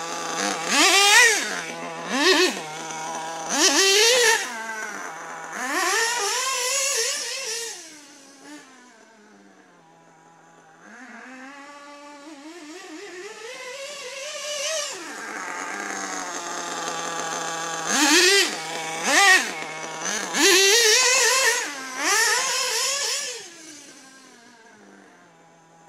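Two-stroke nitro glow engine of a 1/8-scale RC buggy (CRE Novarossi 528 in a Hyper 9), revving hard to a high whine and dropping back to idle again and again as the buggy is driven. It passes loud and close several times, fades off into the distance about a third of the way in, grows louder as it comes back, and fades again near the end.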